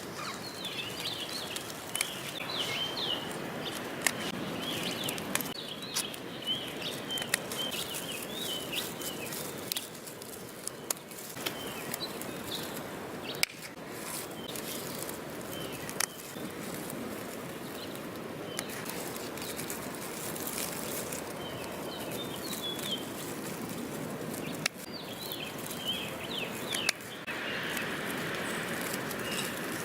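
Hand pruning shears snipping through perennial stems, a sharp click every few seconds, over steady wind noise and rustling foliage. Small birds chirp in short bursts near the start, midway and near the end.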